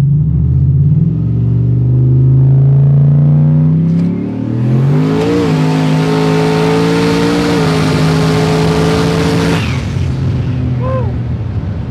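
Turbocharged 427 cubic-inch V8 pulling hard, its revs climbing over the first few seconds. About four and a half seconds in, a loud rushing hiss joins as the engine holds high, steady revs, and both fall away at about ten seconds.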